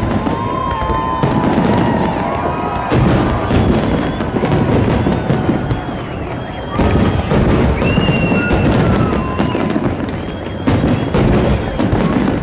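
Aerial fireworks display: a dense, irregular run of shell-burst bangs and crackles, one after another.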